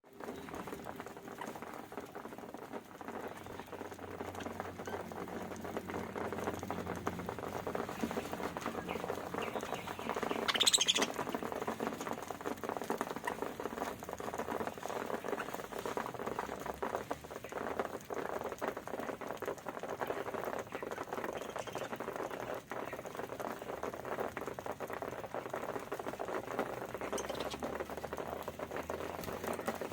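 Budgerigars pecking and cracking grain: a dense, steady patter of small clicks and crunches. A bird chirps briefly about a third of the way in, and more faintly near the end.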